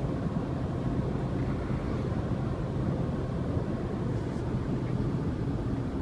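6.7L Cummins turbo diesel in a Ram 3500 running steadily at about 1500 RPM with the exhaust brake engaged on a downgrade, a steady low drone as it holds the truck's speed.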